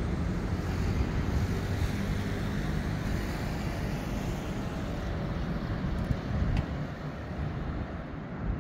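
City street traffic at an intersection: a steady low rumble of car engines and tyres.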